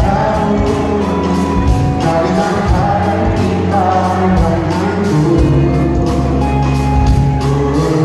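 Live pop band music playing in a concert hall: sustained bass and keyboard chords over a steady drum beat.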